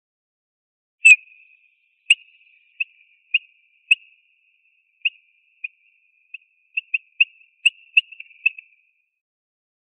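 Eurasian bullfinch giving a run of short, clear whistled notes at one pitch, about two a second. The notes start about a second in with the loudest, and come a little closer together near the end.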